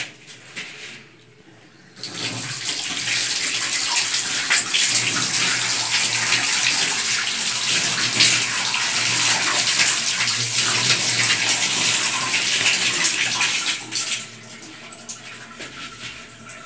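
Water running from a washbasin tap and splashing as someone washes his face with his hands. The steady running starts about two seconds in and stops about two seconds before the end, leaving fainter splashes.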